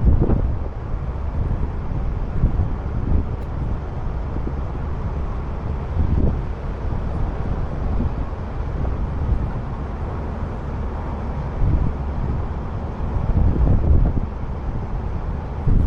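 Low steady rumble of a running vehicle, with wind buffeting the microphone in gusts.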